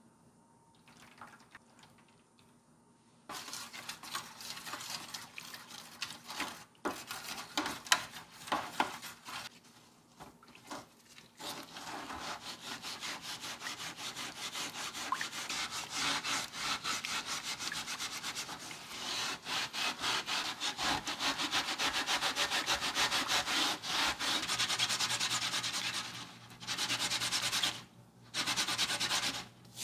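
Green abrasive scouring pad scrubbing a rusty Joseon sickle blade in a shallow steel tray of water: a rapid, continuous rubbing rasp of many quick strokes, starting about three seconds in. Near the end it breaks into short bursts as the sickle's small iron ferrule is rubbed on the flat pad.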